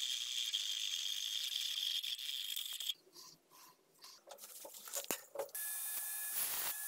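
A steady high-pitched hiss with a whistling tone for about three seconds, then a few light metallic clicks and taps from a threaded steel rod being handled at a vise. About five and a half seconds in, an angle grinder starts a steady hissing whine.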